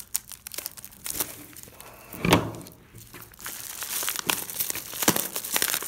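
Plastic bubble-mailer packaging crinkling and rustling as it is cut open with scissors and pulled apart by gloved hands, with a louder crunch about two seconds in.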